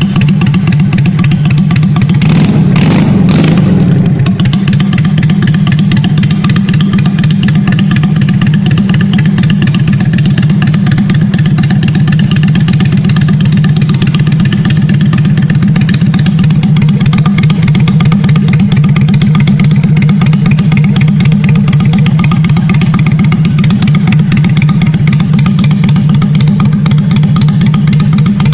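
Yamaha Steed 400's V-twin engine idling steadily with an even low pulse, with a brief burst of louder noise about two to three seconds in.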